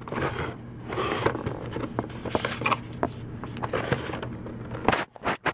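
Cardboard box and packaging rustling and scraping as an external hard drive is handled and lifted out of its box, with small clicks throughout and a few sharp knocks near the end.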